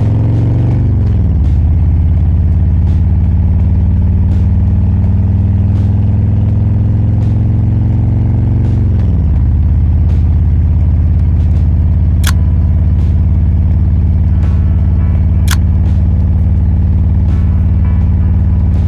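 Harley-Davidson Road Glide Limited's V-twin engine running under way at a steady cruising speed. The engine pitch drops as it shifts up about a second in and again about nine seconds in, then holds steady. Two sharp clicks come about twelve and fifteen seconds in.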